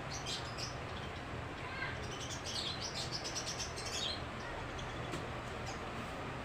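Small birds chirping, a run of short, high chirps coming thickest in the middle, over a steady low hum.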